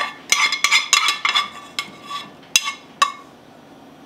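Metal cookware clinking and knocking against a stainless wire-mesh strainer as cooked raspberry sauce is poured and scraped into it. A quick run of clinks with a short ring for about the first second and a half, then a few single clinks, dying down near the end.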